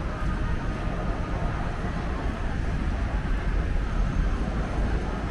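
Steady city street noise with a low rumble of traffic.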